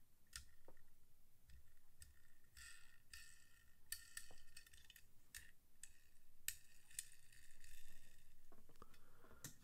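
Hot Wheels die-cast Porsche 944 Turbo toy car being handled and turned over in the fingers while its wheels are checked for roundness: faint scattered clicks and short bouts of light scraping.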